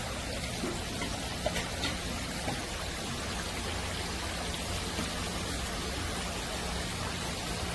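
Thin jets of water pouring steadily into basins of live shellfish, a constant splashing trickle.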